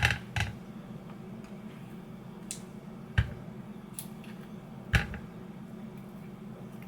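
Kitchen handling noise: a few sharp knocks and clicks of a food container and utensils being set down and moved on a counter, the strongest two about three and five seconds in, over a steady low hum.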